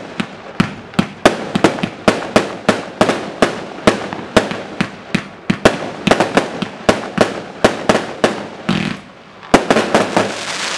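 20 mm firework cake (Imperial Lotus IL2001) firing shots straight up in quick succession, about three sharp bangs a second with the noise of the bursts between them. Near the end, after a brief lull, one louder bang is followed by a denser run of rapid pops.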